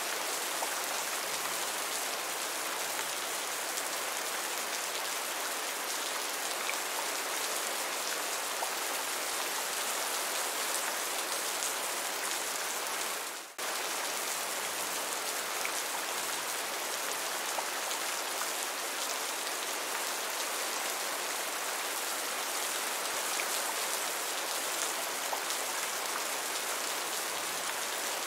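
Heavy rain falling steadily, a dense even hiss of drops. It drops away for a moment about halfway through, then returns at the same strength.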